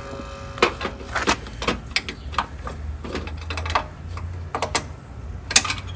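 Irregular metallic clicks and clinks of hand tools working at a lawn tractor's battery terminals and fittings, two or three a second, some in quick pairs.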